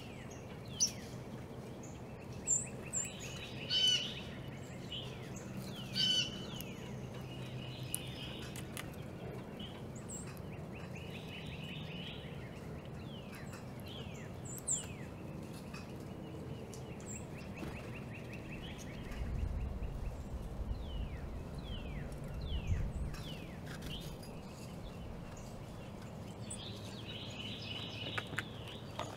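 Small songbirds chirping and calling outdoors, with many quick downward-sliding chirps and a few buzzy trills, over a steady low hum. A low rumble rises about two-thirds of the way through.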